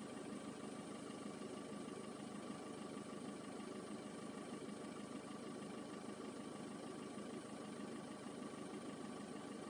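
Seat Leon 5F running steadily with the noise that appeared after its fuel pump was replaced: an even hum with a faint steady whine above it.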